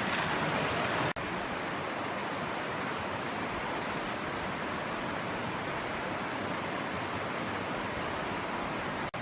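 Rushing water of a mountain trout stream, a steady even rush that cuts out for a moment about a second in and again near the end.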